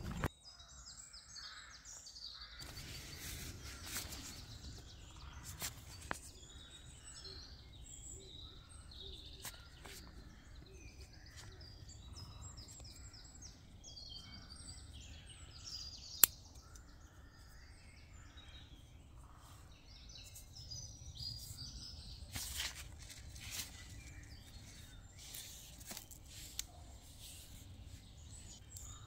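Small songbirds chirping and singing in woodland, with rustling and handling noises from a nylon tarp and its guyline cord being adjusted. A single sharp click about 16 seconds in is the loudest sound.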